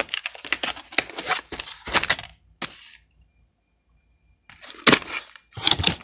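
Handling noise from a cardboard kit box and a laminated instruction card: crackling and rustling with many small clicks for about three seconds, a short near-silent gap, then two louder rustles near the end.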